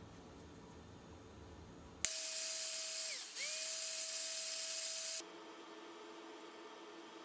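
Angle grinder with a cut-off disc cutting a small metal piece for about three seconds: a loud hissing whine whose pitch dips briefly partway through as the disc takes load, then recovers before the sound cuts off suddenly.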